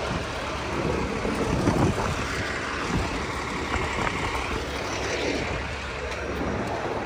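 Cabin noise aboard a 2022 Nova Bus LFS city bus: its Cummins L9 diesel engine running steadily, with a few knocks and rattles from the bus body.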